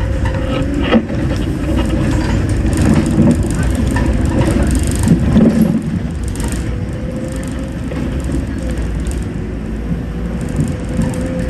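Scania K270UB single-deck bus heard from inside the saloon while it drives along: engine and driveline running with a steady whine over a low rumble, and a few knocks and rattles from the body.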